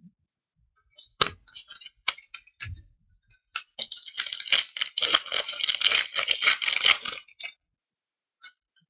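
Stiff cardboard trading cards handled in the hands: a few light clicks and taps, then about three seconds of dense rustling as the cards slide against each other, then a couple of faint clicks near the end.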